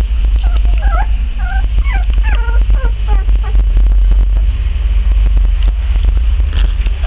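Twenty-day-old Border Collie puppies whimpering and squeaking in short, wavering high calls, mostly in the first three seconds. Under them is a steady low rumble with frequent faint clicks.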